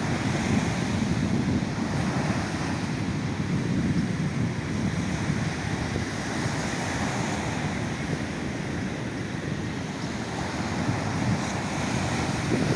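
Steady wind buffeting the microphone over the wash of sea waves.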